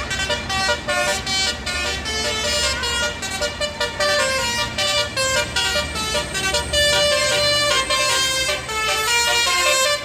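Bus telolet basuri horn playing a fast melody of short, changing-pitch air-horn notes, over a low steady rumble.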